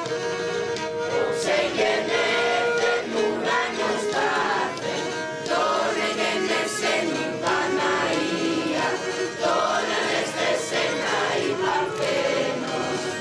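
A group of voices singing Greek Christmas carols (kalanta) together in the Pontic dialect.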